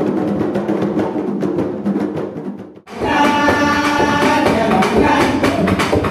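Bèlè hand drums (tanbou bèlè) played by several drummers. About three seconds in the sound cuts abruptly to a louder bèlè passage: drumming with singing.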